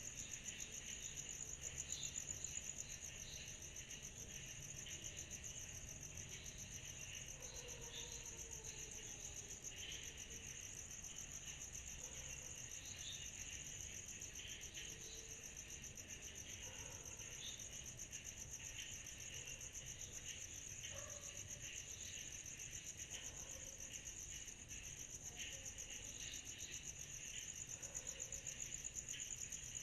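Summer-night insect chorus, sold as cicadas: a steady high-pitched pulsing trill, with a lower, more uneven layer of chirps beneath it.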